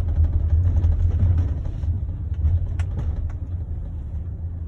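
Steady low rumble of a taxi's engine and road noise, heard from inside the cabin as the car drives, easing off slightly toward the end.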